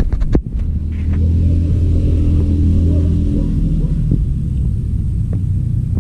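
A low, steady rumble with a droning motor-like hum, strongest in the first half. A few sharp clicks come right at the start.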